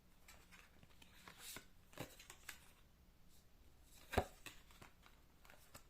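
Tarot cards being handled and laid out on a table: soft rustling with a few light taps, the loudest about four seconds in.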